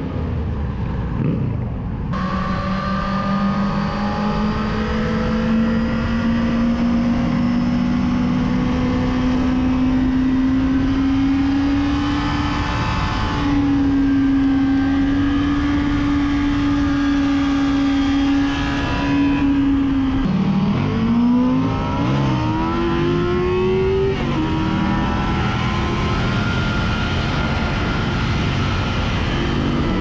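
Yamaha FZ6's inline-four engine heard from on the bike, running at high revs at highway speed over steady wind rush. The engine note climbs slowly, drops sharply about twenty seconds in, then rises again and levels off.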